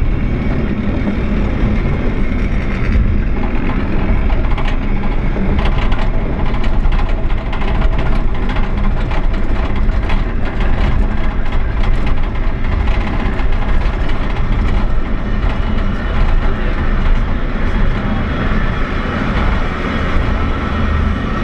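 Lynton and Lynmouth Cliff Railway's water-balanced funicular car running down its track: a steady rumble of the wheels on the rails, with light clicks throughout.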